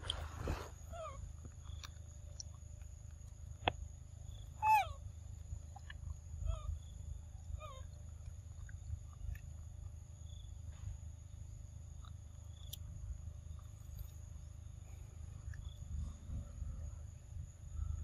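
A few short animal calls that bend in pitch, the clearest about five seconds in, over a faint steady high-pitched tone and a low rumble.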